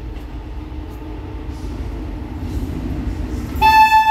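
Low rumble of an approaching WAG-9 electric locomotive and its freight train, slowly growing louder. About three and a half seconds in, the locomotive's horn starts a loud, steady blast on one pitch.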